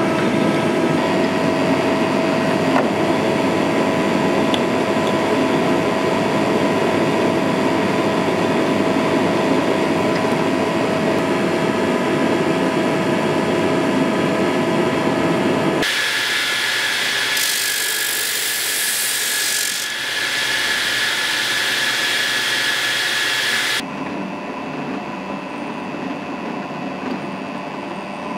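Bench drill press running, its bit cutting into a metal part clamped in a machine vise. About 16 s in, the sound switches abruptly to a higher, thinner one, and about 24 s in it drops to a quieter, lower sound.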